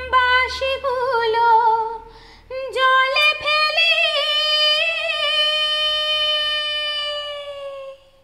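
A woman singing solo in a Bengali devotional folk song. She sings a short ornamented phrase that falls in pitch, pauses briefly, then holds one long wavering note for about five seconds before it fades out near the end.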